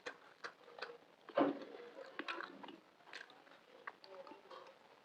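Close-miked chewing with wet mouth clicks, in short irregular bits, with one louder chew or bite about one and a half seconds in.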